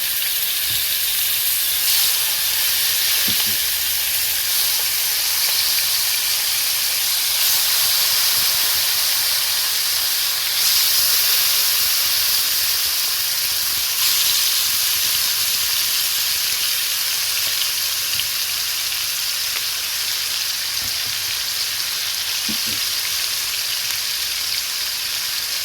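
Chicken wings sizzling in hot oil and browned curry in a pot, a loud, steady frying hiss that swells briefly a few times.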